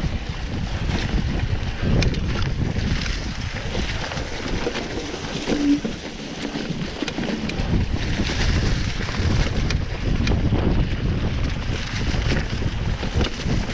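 Wind rushing over the microphone of a mountain bike rider's camera, with rumbling and frequent short knocks and rattles as the bike rolls over a rough dirt trail.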